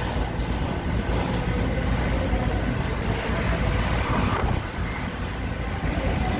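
Steady road noise from a car in motion: a low rumble of tyres and engine with some wind noise.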